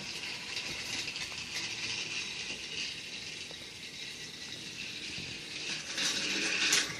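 Battery-powered Thomas and Friends Trackmaster toy train running along plastic track, a steady light rattle of many fine rapid ticks.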